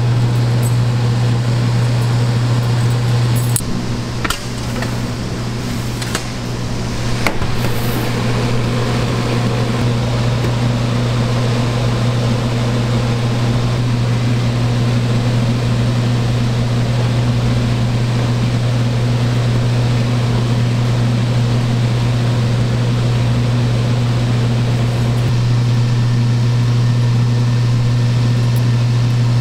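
Steady low hum of kitchen machinery running continuously. A few short clicks sound about four to seven seconds in.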